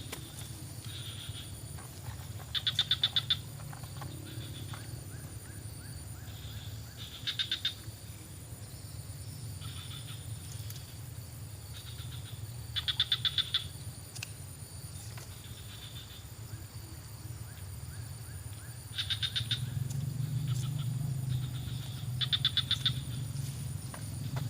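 Repeated rattling animal calls: each is a quick train of clicks lasting under a second, coming every few seconds, with fainter answering calls in between. A steady thin high-pitched insect-like whine runs underneath.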